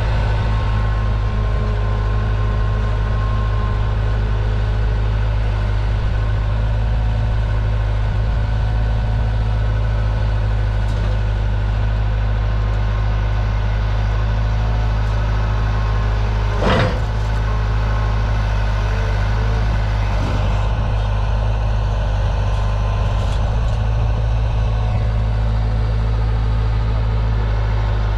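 Skid steer's diesel engine running steadily under load, with a single sharp clank about two-thirds of the way through.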